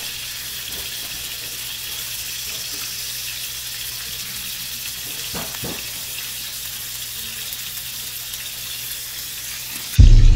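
Beef cubes, potatoes and red onion frying in a skillet with a steady sizzle, with a brief touch of the tongs moving the meat a little past halfway. Near the end a sudden loud boom as intro music cuts in.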